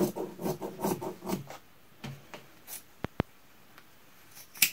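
Scissors cutting through dress-shirt fabric in a quick run of crunching snips, about six a second, for the first second and a half. Then two sharp clicks about three seconds in, and one louder snip near the end.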